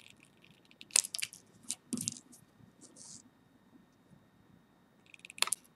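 Small scissors snipping through leather cord: a few short, crisp cuts about a second in, again around two seconds and near the end.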